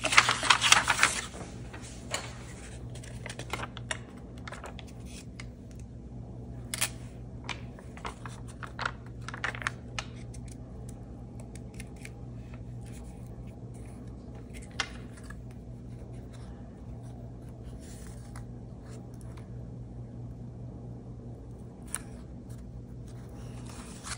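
Paper and cardstock handled on a cutting mat: a loud rustle of a sheet sliding across the mat at the start, then scattered soft rustles and taps as a glued paper panel is pressed and smoothed onto a card base.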